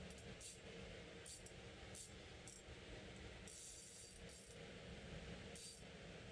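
Fishing reel being cranked while fighting a fish, giving faint irregular metallic clicking bursts, a longer run of them about midway, over a low steady hum.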